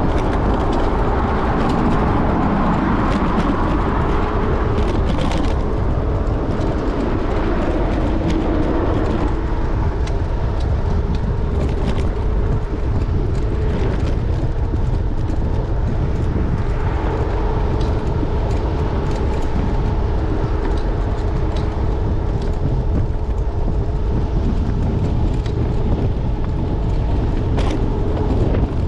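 Electric scooter ride picked up by a handlebar-mounted camera: steady wind and road rumble, with a steady whine and scattered sharp rattles and clicks.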